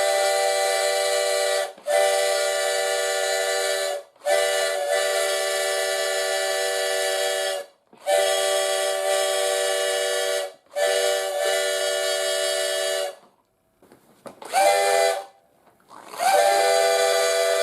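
Homemade five-chime plastic straw train horn, with water sprayed into its bell throats to mimic a steam whistle, sounding a steady five-note chord. It goes in a run of long blasts of two to three seconds each with short breaks between, then a brief toot and another long blast near the end.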